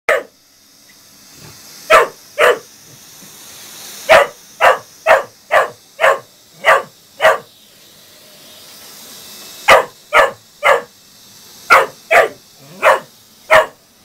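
A spaniel barking at a moving robot vacuum cleaner: short volleys of sharp barks, about two a second, with pauses about a second in and around the eight-second mark. Beneath the barks is the faint steady whirr of the robot vacuum.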